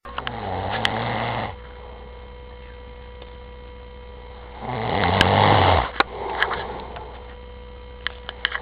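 A man snoring in his sleep: two snores about four seconds apart, each a little over a second long, the second louder, over a steady electrical hum.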